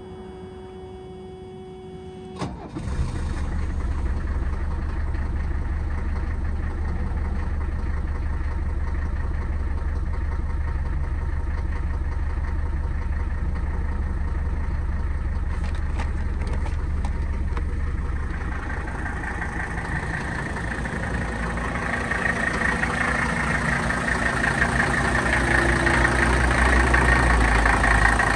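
Cold start of a 1982 Mercedes-Benz 300 SD's turbocharged five-cylinder diesel: a faint hum, then about two and a half seconds in the engine cranks briefly, catches at once and settles into a steady idle. The idle grows louder toward the end.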